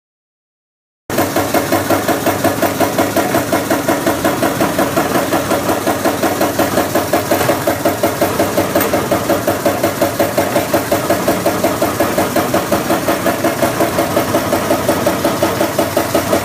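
High-speed pearl and bead sewing machine running, stitching a strand of beads onto fabric with a fast, even mechanical beat of about five strokes a second. It starts abruptly about a second in.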